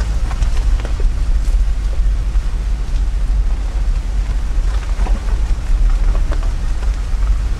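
Car driving slowly over a gravel road: a steady low rumble of tyres and engine, with faint crackling of gravel under the tyres.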